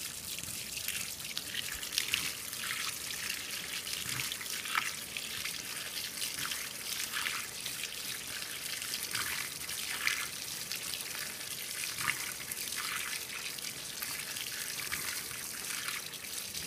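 Water pouring from the fill inlet of a 2012 LG top-load washer into the tub and splashing onto the clothes during the fill: a steady trickling rush with irregular splashes.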